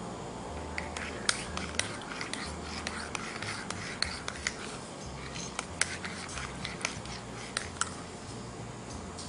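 Metal spoon clinking against the inside of a ceramic cup while stirring yeast into warm milk: irregular sharp clinks, a few each second, starting about a second in.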